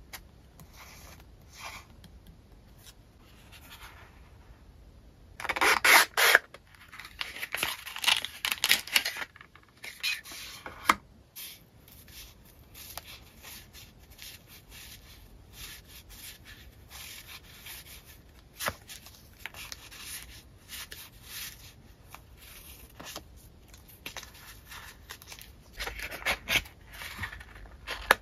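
Hands handling paper stickers and stamp-shaped paper pieces: soft taps and light rubbing at first, then a loud stretch of paper rustling from about six to eleven seconds in, followed by small paper rustles and clicks, and another burst of rustling near the end as a small card box of stickers is handled.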